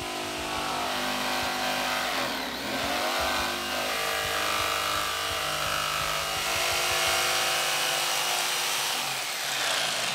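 Jigsaw running and cutting through a laminated desk top, with a steady motor whine and blade buzz. The pitch dips and climbs back up about two and a half seconds in.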